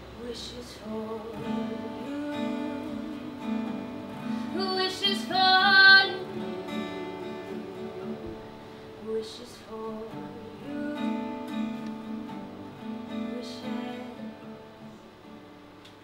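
Acoustic guitar accompaniment with a voice singing a slow melody. The singing swells to its loudest about six seconds in, then softens toward the end.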